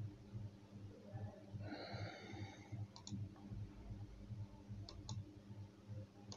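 Faint computer mouse clicks: a pair about three seconds in and two more around five seconds, over a low background hum.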